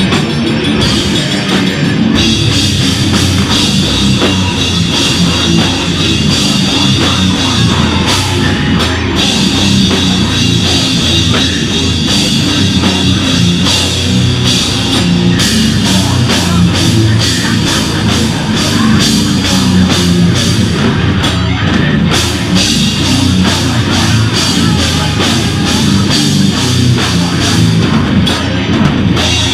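Beatdown hardcore band playing live: heavily distorted extended-range electric guitars over a pounding drum kit, loud. The drumming turns faster and more even about halfway through.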